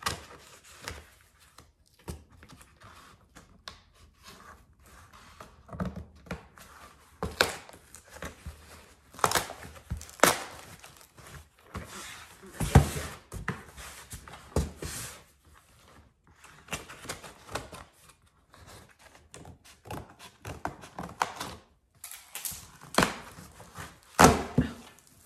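A cardboard shipping box being cut open and handled: a blade is drawn along its packing tape, the cardboard scrapes and rustles, and irregular knocks and thuds sound on the box, the loudest a little past halfway.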